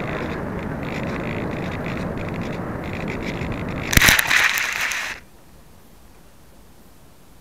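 HobbyKing Bixler RC foam plane in low flight, a steady rush of wind and motor noise on its onboard camera. About four seconds in comes a sharp thump as it hits the ground, then about a second of scraping and rustling as it slides through grass, and the noise stops.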